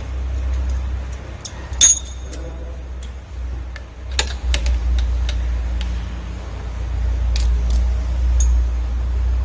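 Scattered metallic clicks and clinks of metal parts or tools, with one loud ringing clink about two seconds in, over a steady low rumble.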